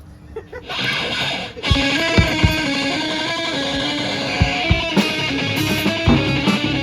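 Live rock band playing loudly: electric guitar starts under a second in, and the full band with drum hits comes in about a second and a half in.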